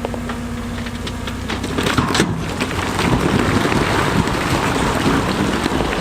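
Heavy diesel machinery running at a steady hum, then from about two seconds in a loud, continuous clatter of stones tumbling and grinding against each other and against steel as rock is dumped or pushed.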